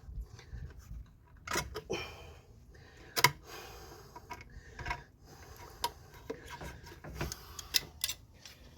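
Irregular clicks and light metallic clanks of pliers working a spring hose clamp onto a car's lower radiator hose, the loudest about three seconds in.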